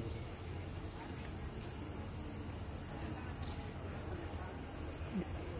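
Steady high-pitched insect drone in tropical forest, breaking off for a moment about every three seconds, over a low background rumble.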